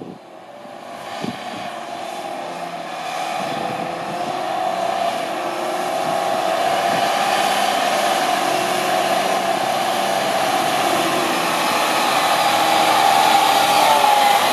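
Diesel engine of a 2012 International TranStar 8600 day cab tractor running as the truck drives up, growing steadily louder as it comes closer. A whine rides on top and wavers slightly in pitch.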